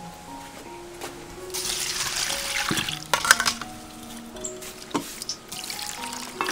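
Water pouring from a jug onto red ant eggs in a metal mesh strainer, with a few sharp knocks against the metal, over background music.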